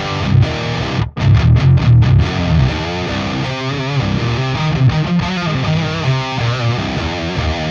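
Distorted electric guitar riff through a Peavey Invective amp's crunch channel with the boost off, giving a thick tone: rhythmic heavy chugs that stop dead for a moment about a second in, then continue with chords and single notes.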